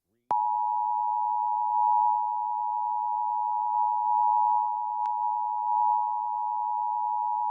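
Emergency Alert System attention signal: two steady tones sounded together in one unbroken, harsh dual-tone note, starting a fraction of a second in after a brief silence. It announces a severe thunderstorm warning.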